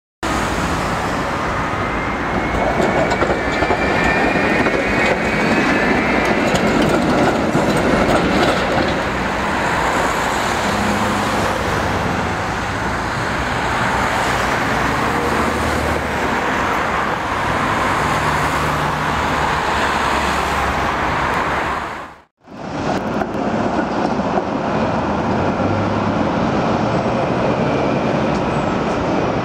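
Tram running on rail, a steady rumbling and rolling noise with faint high whining tones a couple of seconds in. The sound cuts out for a moment about 22 seconds in, then carries on.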